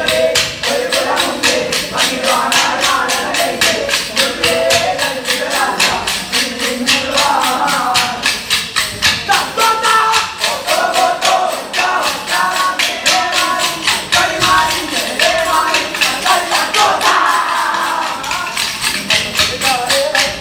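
Kolkali stick dance: the dancers' short wooden sticks clacking together in a steady rhythm, over a sung Kolkali song.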